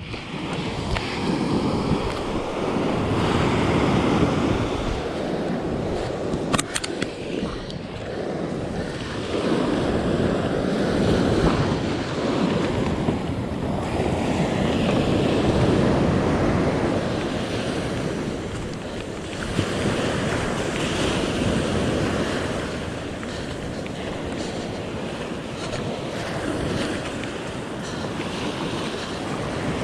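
Wind on the microphone and water sloshing, rising and falling in long surges every few seconds.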